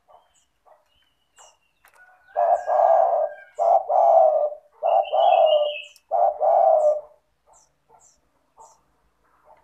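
Spotted dove (tekukur) cooing: a phrase of low, slightly falling coos in short-long pairs, from about two seconds in to about seven. Faint high chirps of small birds sound around it.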